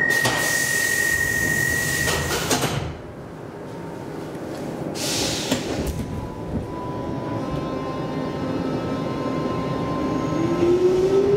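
Stockholm metro C14 train departing: a steady high warning beep and the hiss of the sliding doors closing, ending about two and a half seconds in, then a short hiss of air about five seconds in. Near the end the traction motors start to whine, rising in pitch as the train pulls away.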